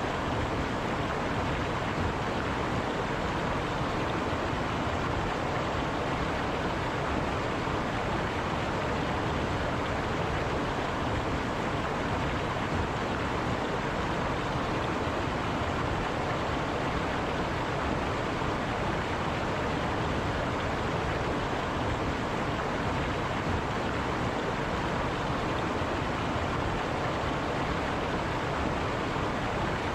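River water flowing steadily, a constant rushing wash with no changes.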